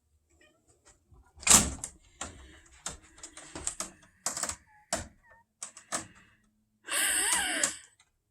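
A cat's claws hooking and snagging into curtains as it climbs, giving a run of irregular sharp clicks and taps. Near the end comes a longer scraping rustle of about a second.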